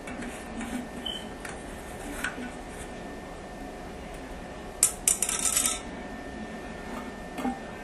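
Toilet tank parts being handled while the flush valve is removed: light plastic clicks and taps, a sharp clack about five seconds in followed by about a second of rattling clatter, and a small knock near the end.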